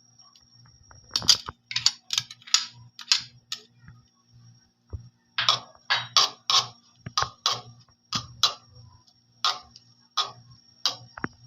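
Garlic frying in melted butter in a pan, spitting with irregular sharp pops, about one or two a second, over a faint steady hum.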